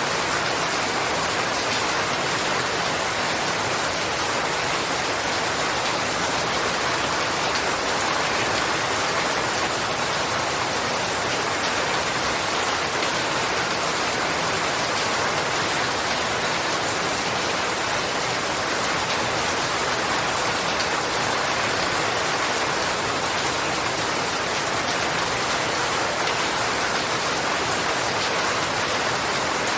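Steady, even rain falling, a continuous hiss of many drops with no distinct individual hits.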